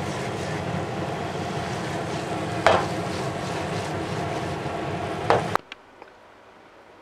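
Thin pork slices sizzling steadily in canola oil in a frying pan, with two sharp knocks along the way. The sizzle cuts off abruptly about five and a half seconds in, leaving quiet room tone.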